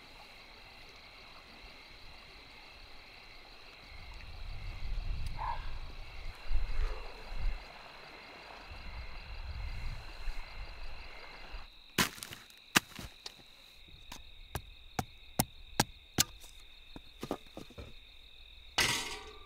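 A steady high-pitched night chorus of calling creatures, with low rumbling that swells and fades in the middle. About twelve seconds in, it gives way to a series of sharp chopping strikes as firewood is split into kindling by hand, irregularly spaced, with the loudest blows near the end.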